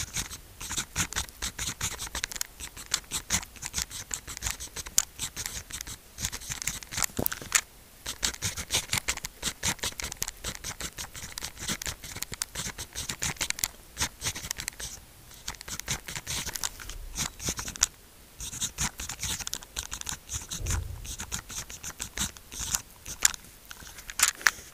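Pen writing on sticky-note paper: a fast run of scratchy strokes, broken by a few brief pauses.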